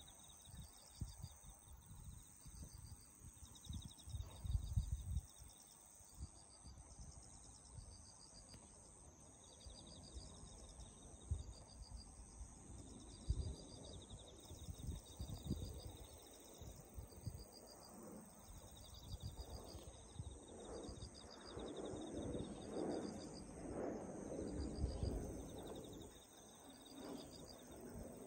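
Insects chirping in repeated high-pitched pulsed trills, faint, with gusts of wind rumbling on the microphone that grow heavier in the second half.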